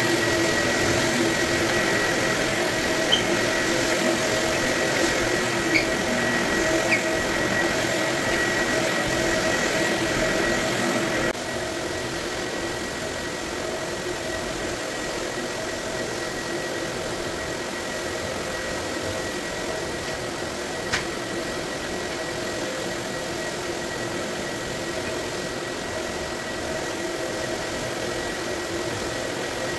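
Electric floor screening machine running steadily as it is pushed over a hardwood floor, abrading the old finish: a constant motor hum with a high whine on top. It drops abruptly in level about eleven seconds in, then carries on unchanged.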